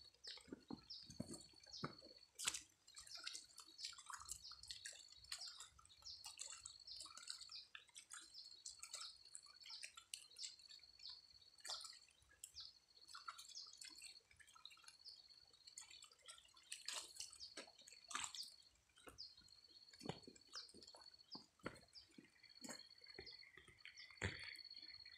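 Faint, irregular dripping and ticking of light rain, with a few louder knocks, over a high thin trill that repeats in stretches of about a second.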